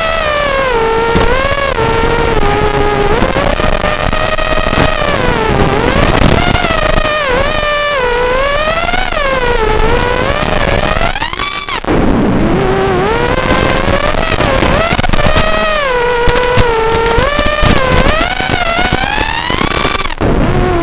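Brushless motors (Racerstar BR2205 2300KV) spinning 5-inch three-blade propellers on an FPV racing quadcopter, a pitched whine that rises and falls continuously with throttle. About eleven seconds in the pitch dives and briefly drops out as the throttle is chopped, then climbs again.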